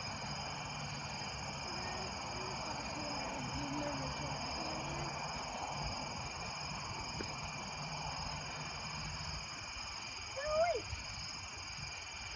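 Steady night-time chorus of insects such as crickets, several high-pitched trills holding on without a break. A brief, louder vocal sound comes about ten seconds in.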